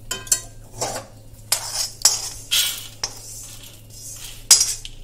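A perforated steel skimmer scrapes dry-roasted moong dal around a kadai and tips it onto a steel plate: metal scraping on metal, with the dry grains rattling, in a run of short strokes about once or twice a second.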